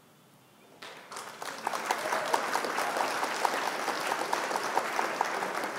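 Crowd applause sound effect marking the answer reveal. It comes in about a second in with a dense patter of many hands clapping, and holds steady.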